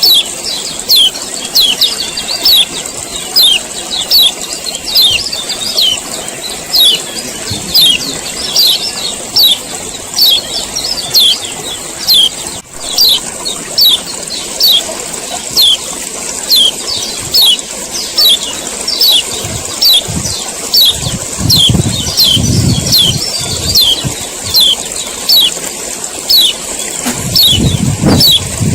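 Male kecial kuning (a white-eye, pleci) giving repeated sharp 'ciak' calls about once a second, each note falling in pitch, over a steady high hiss. A low rumbling joins in twice, briefly.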